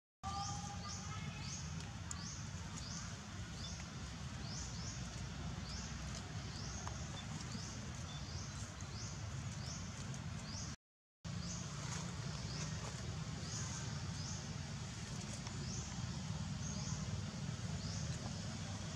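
Forest ambience: a high, short chirp repeated about twice a second over a steady low rumble. It cuts out for half a second about eleven seconds in.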